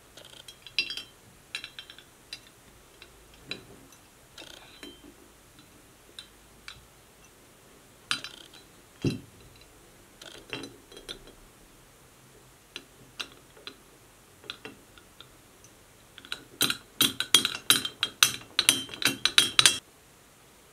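Metal corkscrew with a wooden handle clinking and knocking against the inside of a glass bottle as the bottle is tilted and turned. There are scattered clinks and a dull thump about nine seconds in, then near the end a rapid run of rattling clinks for about three seconds, the loudest part.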